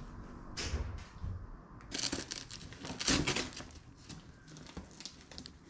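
Gift-set packaging rustling and crinkling as it is handled, in several bursts. The loudest come about two and three seconds in.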